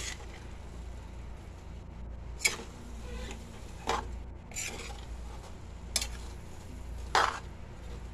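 Metal spatula tossing and mixing rice noodles in a metal pan, scraping and clinking against the pan about five times, every second or so, over a low steady hum.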